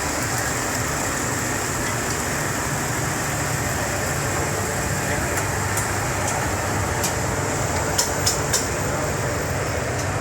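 Steady sizzle and pour of hot oil cascading over frying chicken in a waterfall fryer, over a low rumble, with a few sharp crackles near the end.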